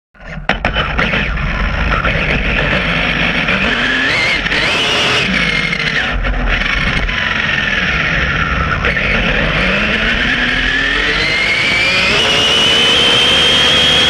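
Electric whine of a 1:8 RC buggy's Castle Creations Mamba Monster 2 brushless motor and drivetrain on a high-speed run. The pitch rises and falls repeatedly with the throttle, then climbs steadily over the last few seconds and holds high, over a steady rushing noise.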